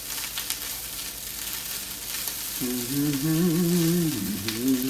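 Turmeric fried rice with smoked salmon sizzling steadily in hot oil in a frying pan, with a few light clicks. From about two and a half seconds in, a man's voice hums over it for about two seconds.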